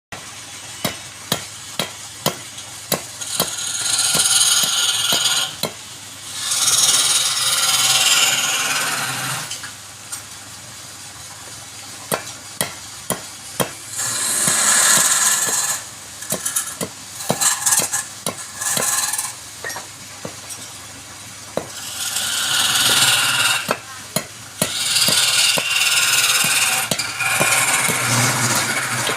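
Wood being cut or shaved with a woodworking tool in repeated scraping passes of one to three seconds each. Sharp taps and knocks fall between the passes.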